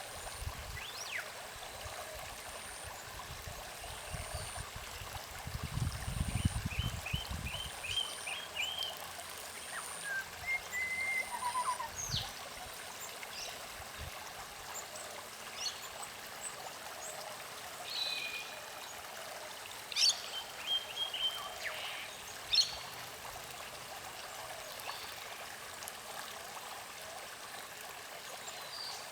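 Creek water running steadily, with birds calling over it: a quick series of short chirps about five seconds in, and scattered single chirps later. A thin, very high note repeats through the first half, and there is a brief low rumble around six seconds in.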